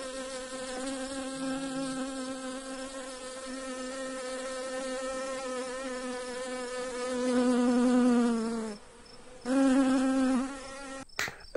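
Cartoon sound effect of mosquitoes whining around a sleeper: a steady buzzing hum that swells about seven seconds in, breaks off briefly, then comes back for about a second.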